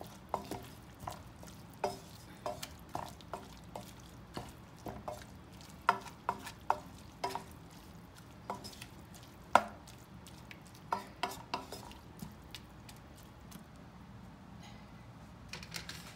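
Wooden spatula stirring minced chicken in a nonstick frying pan, knocking and scraping against the pan in irregular clicks that thin out near the end.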